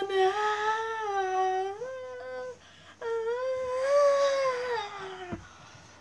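A teenage boy's voice singing two long, drawn-out wordless wailing notes. The second note rises, then slides down and breaks off near the end.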